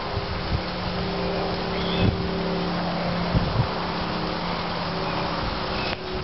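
A steady motor-like hum holding a low tone and a higher tone over a constant hiss, with a few soft low thumps about two and three and a half seconds in.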